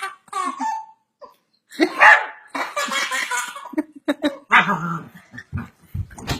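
Pet dog barking repeatedly in short barks, on the command to speak.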